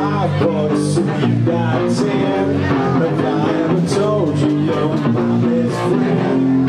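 Live rock band playing: two electric guitars, electric bass and a drum kit with cymbals, with a singer's voice over them.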